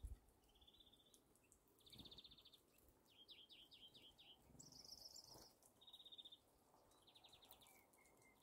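Eurasian nuthatch singing: a string of short rapid trills, one after another, one of them higher and one a falling series of whistled notes. A single low thump sounds at the very start.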